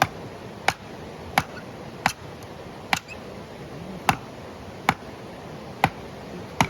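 Firewood being split by hand: a run of sharp knocks, about nine strikes, one every three-quarters of a second.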